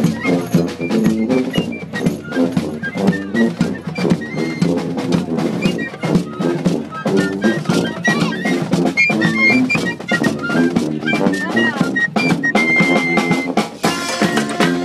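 Street band of brass horns and drums playing a tune: a busy, steady drum beat under brass melody lines, with held horn notes coming in near the end.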